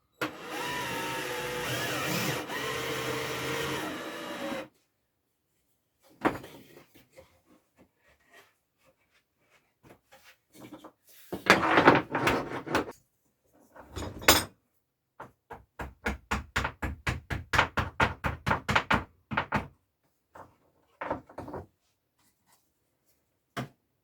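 A small power tool runs steadily for about four and a half seconds and stops, followed by knocks and clatters of cupboard work. About fifteen seconds in comes a fast, even run of clicks, about five a second for some four seconds, then a few more knocks.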